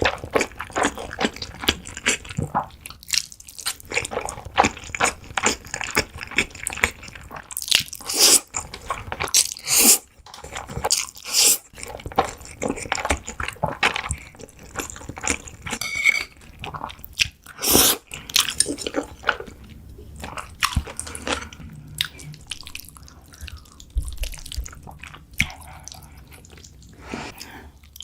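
Close-miked eating of jjajangmyeon (black bean noodles): steady wet chewing and mouth clicks, with several louder slurps scattered through.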